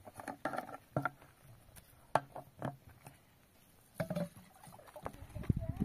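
A string of irregular light knocks and taps, with a low rumble coming in near the end.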